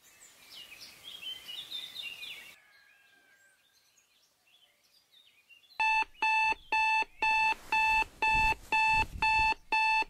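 Birds chirping quickly, then fainter, until about six seconds in a smartphone alarm starts beeping: one steady tone repeating about twice a second, loud.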